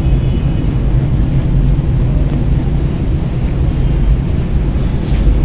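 Steady low background rumble with a faint hum underneath, even in level throughout.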